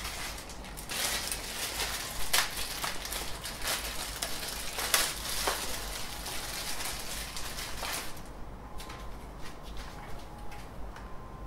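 Rustling and clicking handling noise as a power cable is picked up and untangled. About eight seconds in it drops to a quieter background.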